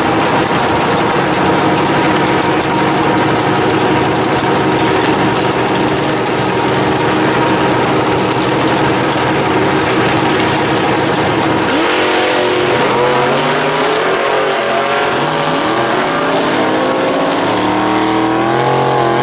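Second-generation Chevrolet Camaro drag car's V8 held at a steady high rpm for about twelve seconds, then revved up and down in repeated blips.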